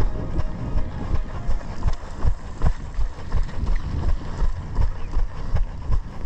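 Running footsteps and body jolts carried to a head-mounted camera, steady thuds about three a second, with wind rumbling over the microphone.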